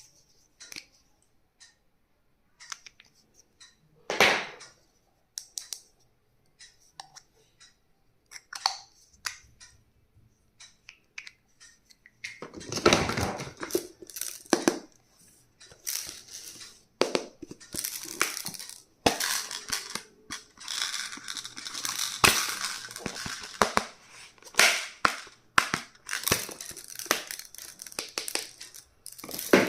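Stationery unboxing sounds: scattered light clicks and taps for the first dozen seconds, then dense crinkling and rustling of packaging being handled and torn open, with frequent clicks.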